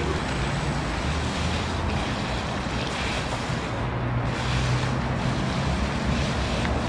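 Water pouring from a spout into a concrete pool: a steady rush of splashing water.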